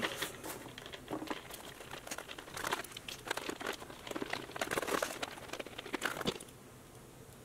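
Cardboard box crinkling and rustling under the hands, with irregular small clicks and scrapes, as the screw-fastened strips that held the machine are worked free of it. It dies down about six seconds in.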